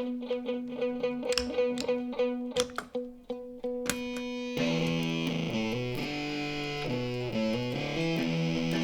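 Electric guitar music: a single note picked over and over at a quick, even pace, then about four and a half seconds in a heavily distorted guitar comes in with a moving bass line.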